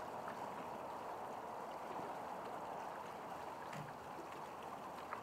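A steady rushing noise like running water, with a few faint, distant firework pops.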